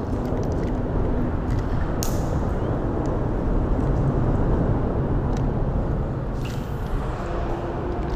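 Steady rumble of highway traffic on the bridge overhead, with two brief hisses, one about two seconds in and one near the end.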